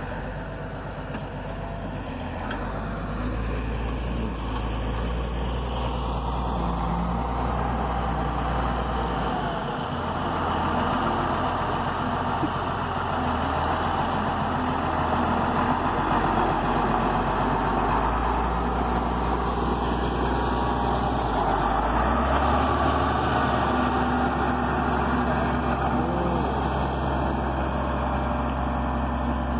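Caterpillar motor grader's diesel engine running steadily, growing louder as the machine comes closer while working along a muddy dirt road.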